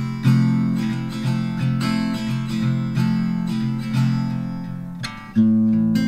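Background music of strummed acoustic guitar chords, with a new phrase coming in loudly about five seconds in.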